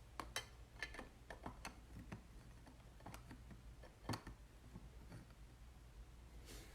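Scattered light clicks and taps from handling trading cards and their packaging, a dozen or so irregular ticks with the sharpest about four seconds in, over a low steady hum.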